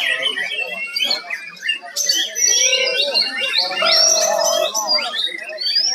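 Many caged songbirds chirping and singing at once, quick overlapping calls and trills, with a short steady whistled note about four seconds in.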